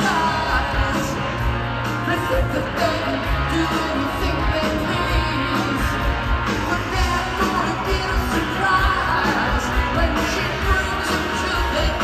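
A rock band playing live: electric guitars, drums and keyboards with singing, recorded from among the audience.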